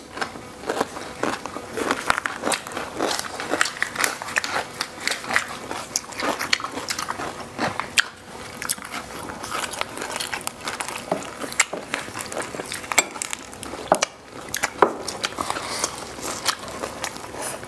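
Close-miked chewing and crunching of rice-paper rolls filled with crispy deep-fried red tilapia and fresh greens. Dense, irregular crisp crackles and wet mouth sounds come from two people eating.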